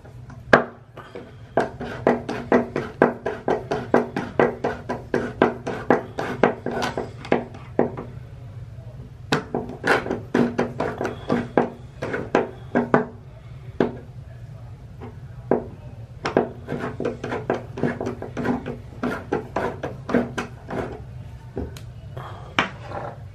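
Flathead screwdriver unscrewing the metal screw of a shower drain stopper: a long run of quick, irregular metal-on-metal clicks, each with a brief ring, over a steady low hum.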